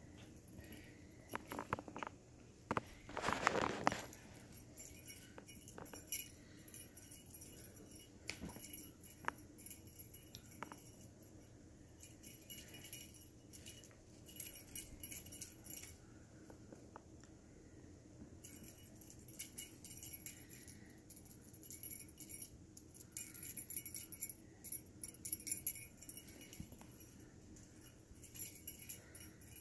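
Small bell on a feather wand cat toy jingling faintly on and off as kittens bat at it, with scattered clicks and rustling of the bedding and a louder scuffle about three seconds in.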